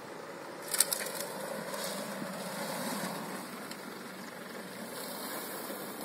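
Isuzu D-Max V-Cross pickup's diesel engine running steadily as it comes down a steep sand dune, with one sharp knock about a second in.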